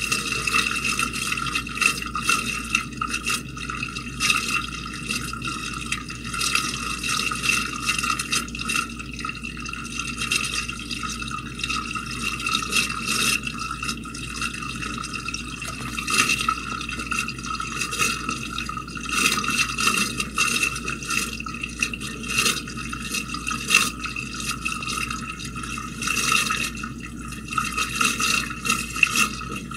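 Water splashing and sloshing in a household sewer drain, with irregular drips and splashes and a steady ringing tone running under it.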